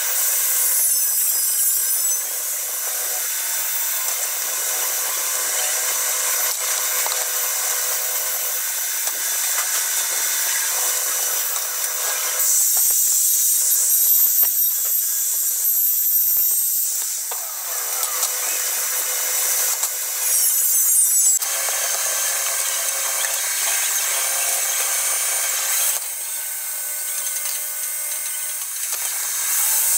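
Electric hand power tool working stainless steel sheet: a steady high-pitched whine over a rasping contact noise that grows and eases as the tool bears on the metal. About halfway through it briefly winds down with a falling pitch, then comes back up to speed.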